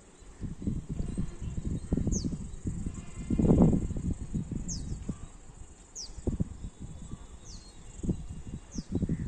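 Wind buffeting the microphone in uneven low gusts, one stronger gust about midway. Through it a bird repeats a short, high call that falls in pitch, about every second and a half.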